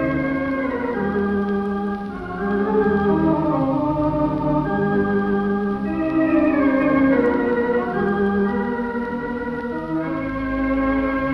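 Wurlitzer theatre organ (the 4/21 at the Trocadero, Elephant & Castle) playing sustained chords with a melody stepping downward twice, heard from a 1934 Columbia 78 rpm disc with a dull, narrow old-record sound.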